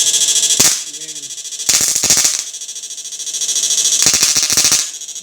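IGBT electric fish-shocking inverter running under test: a high-pitched buzzing whine that swells and fades several times, broken by sharp crackling snaps.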